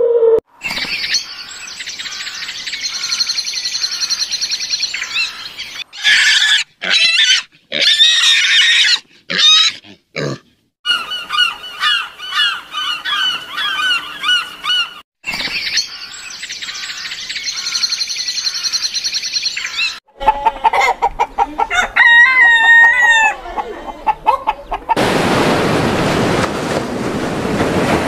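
Gulls calling in several bursts of harsh, repeated cries with short gaps between them. About three seconds before the end the calls give way to the steady rush of surf breaking on a beach.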